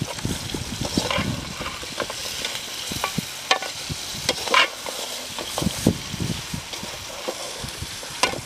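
A perforated metal skimmer scraping and knocking irregularly against a large metal pan as crab pieces are stirred and fried, over a steady sizzle.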